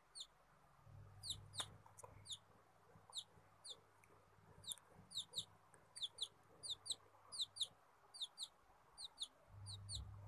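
A baby chick peeping over and over: short, high chirps that fall in pitch, often in pairs, about two or three a second.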